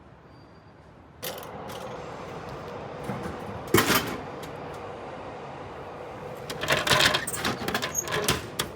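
Vending machine working: a steady mechanical hum starts about a second in, with a sharp knock near four seconds and a quick run of clicks and rattles later, then it stops suddenly.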